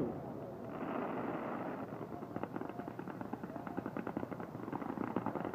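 Fireworks crackling: a dense run of small, rapid pops that thickens about two seconds in, over a steady hiss.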